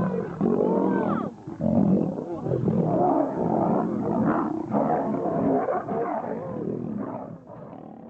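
Big cat roaring in a string of uneven calls that bend in pitch, growing fainter near the end.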